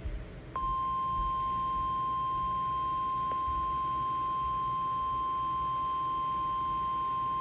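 NOAA Weather Radio warning alarm tone: one steady, unbroken high tone that comes on about half a second in and holds at an even level. It is the alarm that announces a new warning broadcast is about to follow.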